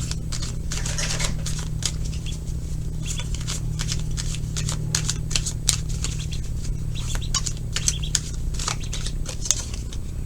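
Tarot cards being shuffled and handled: a run of irregular light clicks and flicks over a steady low hum.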